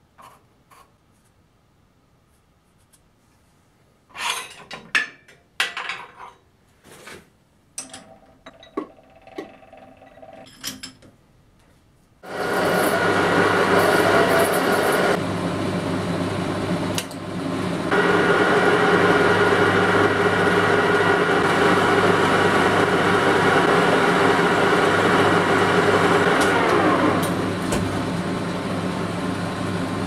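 A few clanks and knocks of steel parts being handled, then an old 1K62 metal lathe starts about twelve seconds in and runs steadily with a gear whine. Near the end the whine falls in pitch as the chuck coasts to a stop, while a steady hum carries on.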